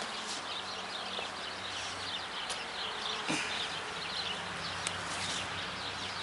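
Honeybee colony humming steadily in an opened hive, with a light crinkling rustle of the plastic cover sheet under gloved hands.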